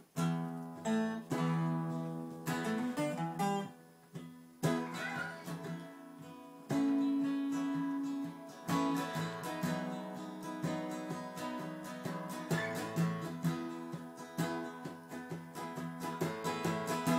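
Two acoustic guitars playing together, single notes and chords picked and strummed, with one note held for a second or so near the middle.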